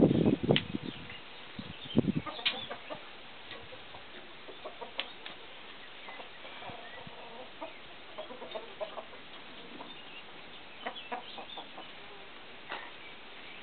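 Chickens clucking on and off, short scattered calls over a quiet background, with a couple of louder knocks in the first two seconds.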